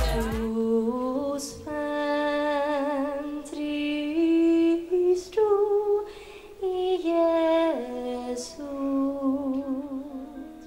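A woman singing solo into a microphone, a slow melody of long held notes with slides between them and short pauses between phrases, with no other instrument heard.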